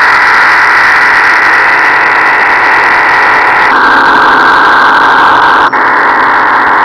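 Shortwave receiver tuned to 9.803 MHz in sideband/CW mode putting out a strong unidentified signal as a loud, steady, rough rushing noise. It drops in pitch a little under four seconds in, and after a momentary break about six seconds in it steps back up higher. The uploader thinks it might have been a transmission from the HAARP high-power HF antenna array.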